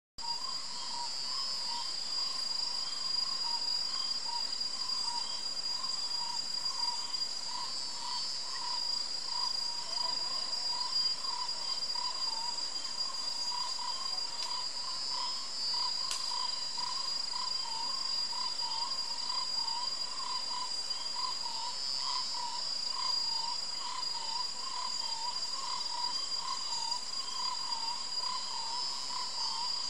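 Steady chorus of insects: a high, continuous buzz that swells about every seven seconds, over a lower, rapidly pulsing trill.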